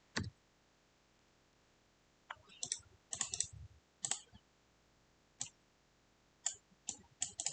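Irregular clicks of a computer mouse and keyboard, about a dozen short sharp clicks, some in quick clusters, with a duller knock just after the start.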